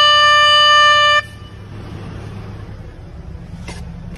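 A single loud horn note, held at one steady pitch, cuts off abruptly about a second in. A much quieter low hum remains, with a faint click near the end.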